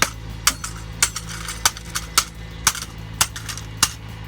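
An alarm clock being struck over and over, sharp blows at an even pace of about two a second, eight or so in all, over a steady low hum.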